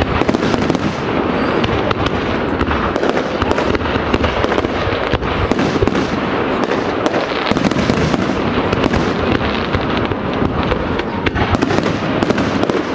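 Fireworks display: many aerial shells bursting in quick succession, an unbroken string of sharp bangs over a continuous rumble, with no let-up.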